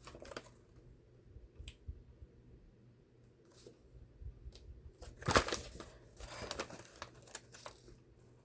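Packaging crinkling and rustling as it is handled, with scattered light clicks and a louder burst of crinkling about five seconds in that runs on for a couple of seconds.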